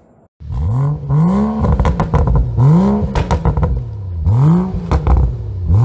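Car engine revved repeatedly, its pitch climbing and dropping back with each blip, with sharp crackles in between. It starts loud about half a second in.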